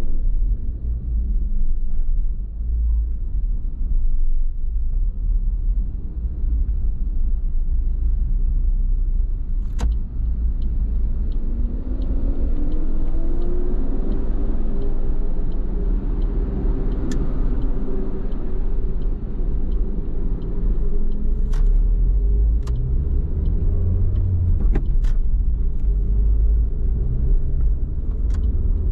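Suzuki Swift Sport's M16A 1.6-litre four-cylinder engine and road rumble while driving. About twelve seconds in, the engine note rises as the car picks up speed, then holds steady. A few sharp knocks stand out over the rumble.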